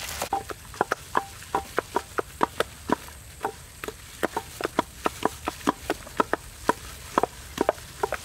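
Wooden pestles pounding in mortars: a quick, irregular run of short knocks, about three or four a second, each with a brief ringing note.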